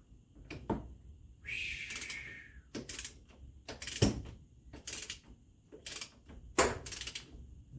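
Hand tools and metal parts being handled: a series of sharp clicks and knocks, with a short rasping noise about a second and a half in.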